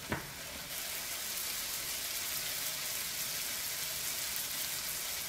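Sliced dumpling wrappers deep-frying in a wok of hot oil, a steady hissing sizzle, with a short click right at the start.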